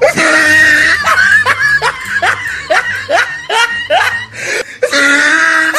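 Human laughter: a long drawn-out note, then a quick run of falling "ha" syllables, about two or three a second, then another held note near the end, over faint background music.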